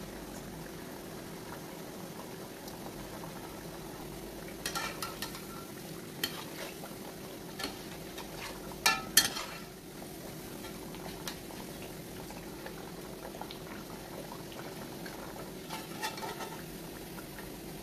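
Dough pieces deep-frying in hot oil in a metal pot, a steady sizzle. A metal slotted spoon clinks and scrapes against the pot several times, loudest about halfway through and again near the end.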